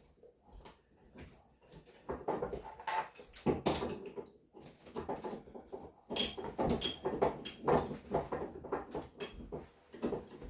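Loose metal suspension hardware being handled: irregular clinks, knocks and rustling, a few of them with a short metallic ring, starting about two seconds in.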